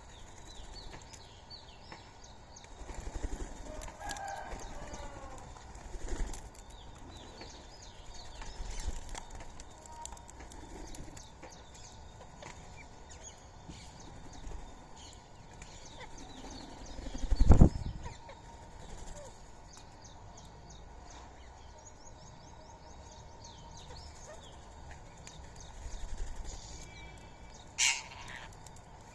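Birds chirping and calling at an outdoor feeding spot, with short flurries of wing flaps. A single loud thump comes a little past halfway, and a sharp shrill call near the end.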